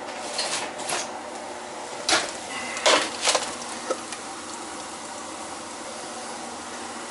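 A foil-lined metal baking sheet set down on gas stove grates: several short scraping clatters of metal and foil over the first four seconds, then only a steady background hum.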